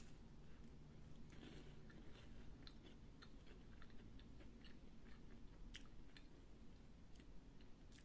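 Faint chewing of a crisp cream-filled wafer with the mouth closed: scattered soft crunches every second or so.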